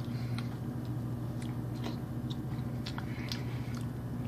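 Soft chewing and small mouth clicks of someone eating a mushy mix of mac and cheese and banana, over a steady low electrical hum.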